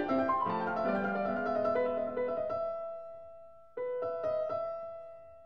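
Background music on piano-like keyboard: a run of notes, then held chords that fade away, with a new chord struck about four seconds in.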